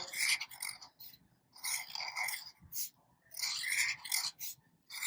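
Felt-tip marker scratching across paper while drawing swirls, in short runs of strokes with brief pauses between.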